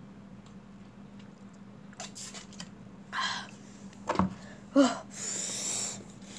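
A plastic snack packet being handled and rustled, with a few light clicks and a brief sharp knock. There is a short breathy noise about three seconds in and a brief vocal sound a little later. About a second of crinkly rustling follows near the end.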